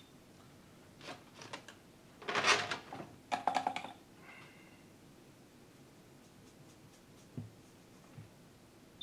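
Hands handling tools and the board on an electronics workbench: a few light clicks and two short scratchy rustles about two and a half and three and a half seconds in, with a tiny high beep at the very start.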